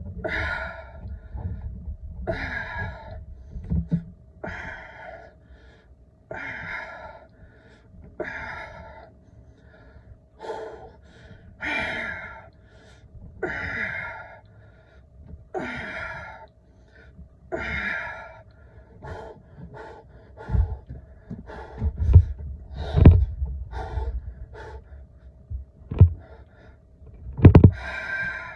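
A man's hard, rhythmic breathing through a long set of dumbbell overhead presses, one forceful exhale roughly every two seconds, from a tiring lifter. In the last several seconds the breaths grow irregular and several loud low thumps come in among them.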